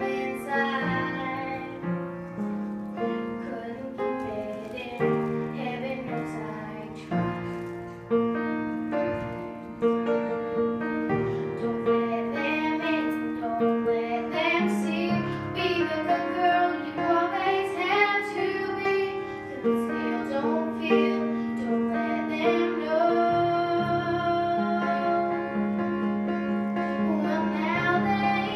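A young girl singing into a handheld microphone over backing music with piano.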